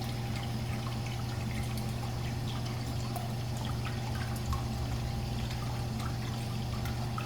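Urinal flushing: water pours and trickles steadily into the bowl, which fills because the drain is slow and only partly clear after a descaling treatment. A steady low hum runs under the water.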